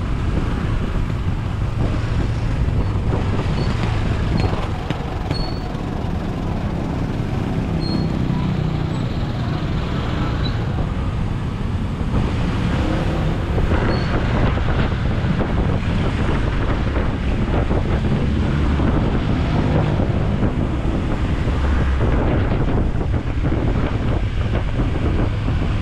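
Wind buffeting the microphone over the running engine of a Honda ADV160 scooter and the road noise of the surrounding traffic, at a fairly steady level.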